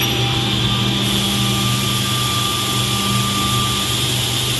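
Automatic edge banding machine running, a steady mechanical hum with a constant hiss.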